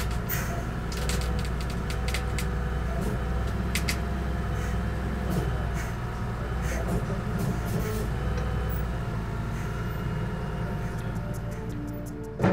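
Forklift engine running steadily, with scattered clicks and knocks.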